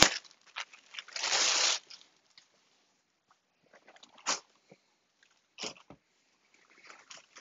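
Plastic packaging crinkling and rustling as it is handled and pulled open, loudest in a burst about a second in, then scattered quieter crackles with a couple of sharper crinkles later on.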